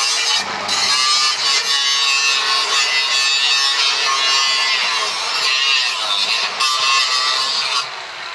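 A power tool cutting: a loud, high-pitched wavering whine with a rasping edge that eases briefly about half a second in and again near the end.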